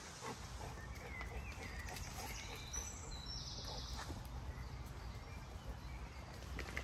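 Faint birdsong: a few short chirps and high trilling notes between about one and four seconds in, over a steady low rumble.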